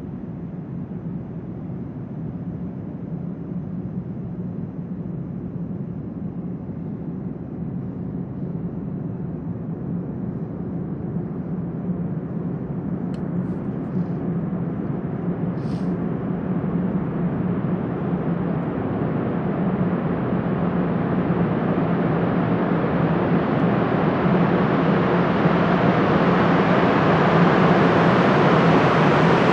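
Montréal Métro MR-73 rubber-tyred train approaching through the tunnel, a rumble that grows steadily louder and brighter until the train is almost at the platform.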